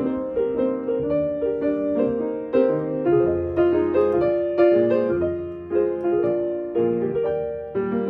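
Background music: a gentle piano melody played in a steady rhythm.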